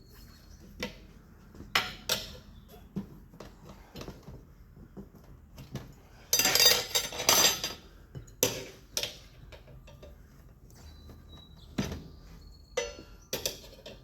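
Steel tire irons clinking and knocking against a dirt bike wheel rim as a tire bead is levered on, in scattered sharp strikes, with one louder scraping stretch of about a second and a half past the middle.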